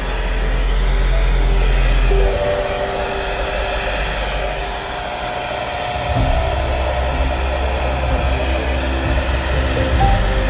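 Handheld hair dryer running steadily, blowing wet pouring paint across a canvas.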